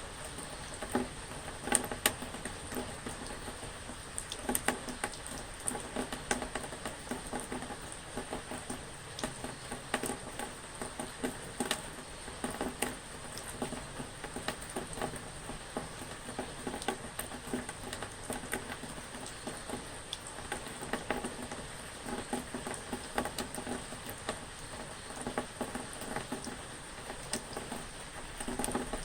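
Steady rain, with many individual drops pattering irregularly on a surface over a constant hiss.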